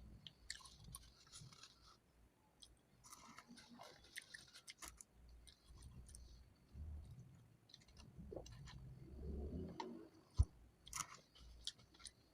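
Faint chewing and mouth sounds of a person eating close to the microphone, with scattered small wet clicks and smacks.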